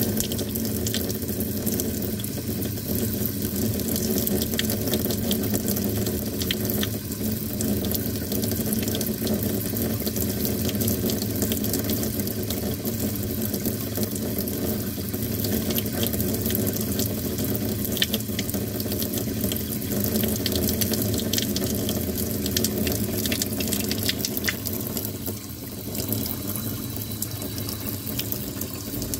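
Tap water pouring steadily into a stainless steel kitchen sink, splashing and bubbling into the water pooled in the basin.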